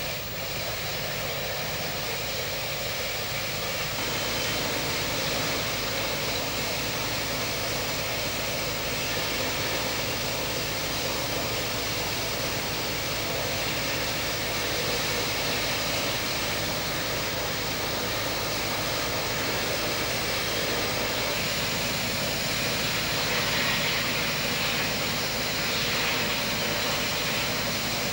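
Steady, even rushing noise with no distinct events, rising a little in level about four seconds in.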